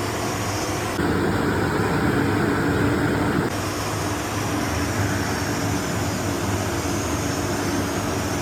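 Steady mechanical drone of boiler-room machinery, with a low hum and a steady tone. It gets louder and fuller about a second in, then settles back a couple of seconds later.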